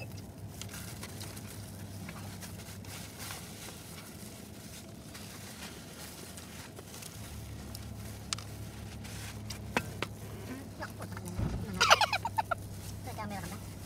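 Rustling and clicking of a cardboard food box and plastic gloves as food is handled, over a low steady hum inside a car. About twelve seconds in, a brief burst of laughter.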